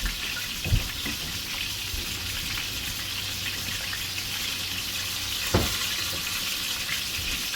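Breaded rabbit pieces frying in a pan: a steady sizzle, with two soft knocks, one about a second in and another about five and a half seconds in.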